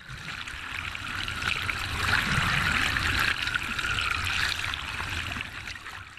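Rushing, churning water of a breaking wave. It builds for about two seconds, holds, then fades away near the end.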